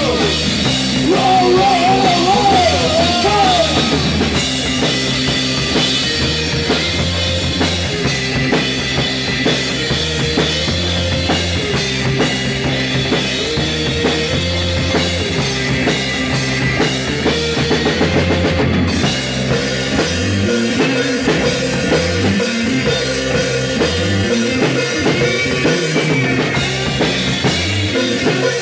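Live rock band playing loud: a drum kit with cymbals and an electric guitar. The low line changes to a quicker moving riff about two-thirds of the way through.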